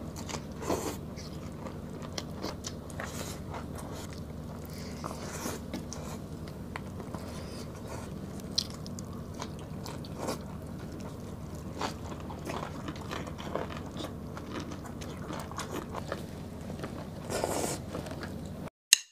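Close-miked eating sounds: two people biting and chewing beef caldereta, rice and stir-fried bok choy, with scattered crunchy bites and wet mouth clicks over a steady low hum. The sound cuts off abruptly near the end.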